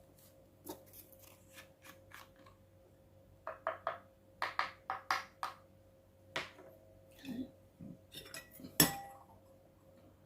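Irregular light clinks and taps of a utensil against bowls or cups while slime ingredients are handled, with one louder knock near the end.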